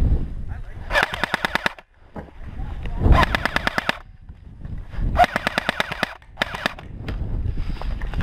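Airsoft rifle firing three full-auto bursts of about a second each, rapid evenly spaced shots, with a shorter burst near the end; low wind and handling rumble on the helmet microphone underneath.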